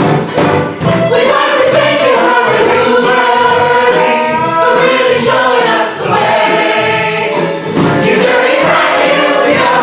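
Stage musical ensemble chorus singing a show tune together, with long held notes.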